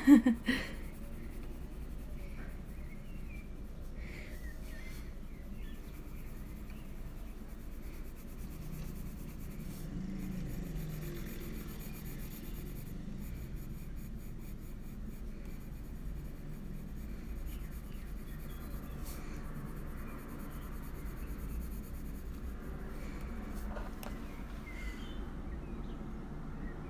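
Faber-Castell Polychromos colored pencil shading on coloring-book paper: a soft, steady scratch of the pencil lead, with a low hum beneath.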